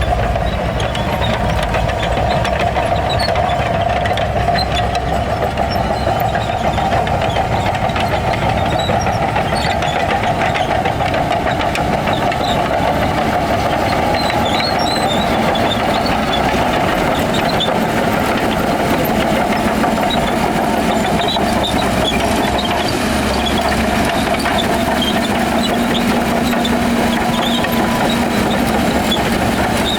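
Heavy earthmoving machinery's diesel engine running steadily, with a low steady hum joining in about two-thirds of the way through.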